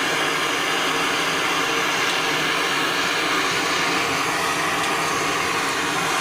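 Gas burner running with a steady rushing hiss, the heat source for melting silver and tin in a crucible.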